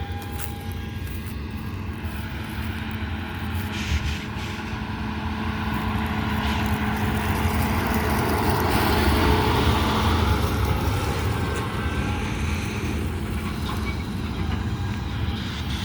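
Diesel engine of heavy harvest machinery running steadily with a rushing mechanical noise. The noise grows louder to a peak about nine seconds in, then eases off as the machine goes past close by.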